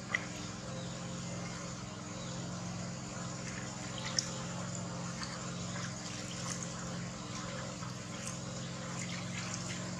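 Water splashing and trickling as a hand scoops it from a plastic tub and pours it over a baby monkey, in small uneven splashes with one sharper splash about four seconds in, over a steady low hum.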